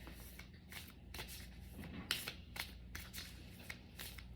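A deck of oracle cards being shuffled by hand: a faint run of quick, irregular card clicks and slides.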